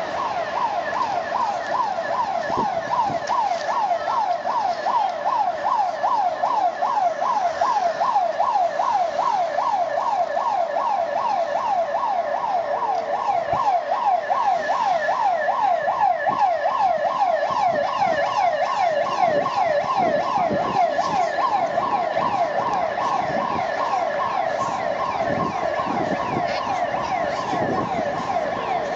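A siren sounding in fast, evenly repeated rising sweeps, about two or three a second. Faint street noise lies beneath it.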